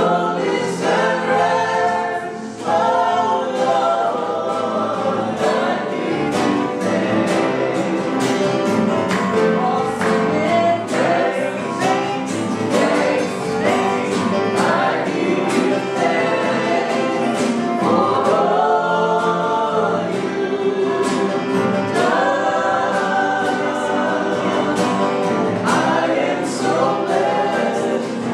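Gospel worship song with choir voices singing over a steady beat.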